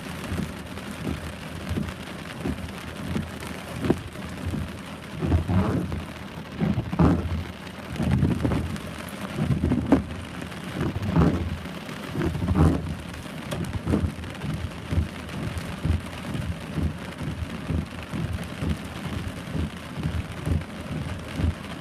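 Heavy rain falling steadily, with frequent irregular low thuds, densest in the middle stretch.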